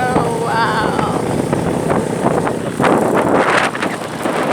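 Wind buffeting the microphone of a moving road vehicle over its running noise, in gusts that grow stronger about three seconds in.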